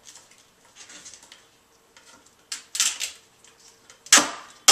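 Duct tape pulled off the roll and wound around a lamp pole, with two loud, short rips about two and a half and four seconds in, and faint rustling of the tape and its handling before them.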